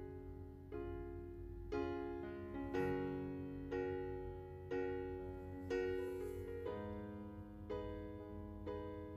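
Background music on piano, a new chord struck about once a second, over a steady low hum.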